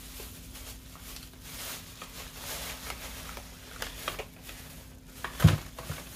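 Rustling and light clicks of store items and packaging being handled and sorted, with one dull thump about five and a half seconds in as something is set down.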